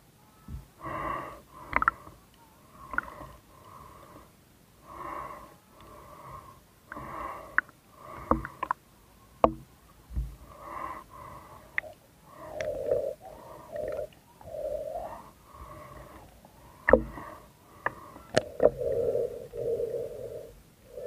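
A person's muffled, wheezy breathing, in repeated breaths about once a second, with scattered sharp clicks and knocks between them.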